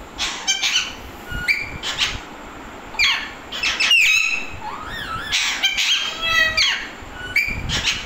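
Alexandrine parakeets calling: a string of short, harsh squawks and chattering calls that slide up and down in pitch, coming in bursts every second or so.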